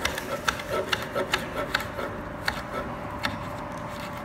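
Chef's knife chopping andouille sausage on a wooden cutting board: irregular sharp taps of the blade hitting the board, two or three a second.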